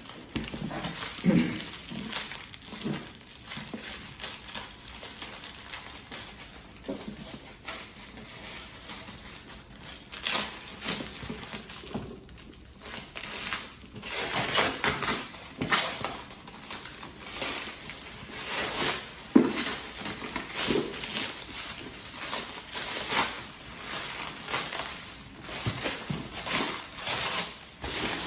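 Packaging being handled and unwrapped by hand: irregular crinkling and rustling, with occasional small knocks, getting busier about a third of the way in.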